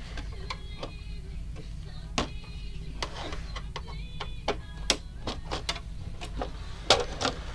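Irregular plastic clicks and knocks as a screwdriver pries and taps at the housing of an exit sign to open it, the sharpest knock near the end.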